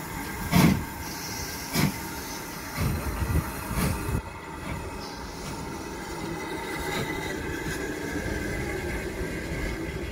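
LMS Ivatt Class 2 2-6-2 tank steam locomotive 41312 pulling away from the station, with about five loud exhaust chuffs in the first four seconds, coming closer together as it gathers speed. Then the coaches roll past with a steady rumble.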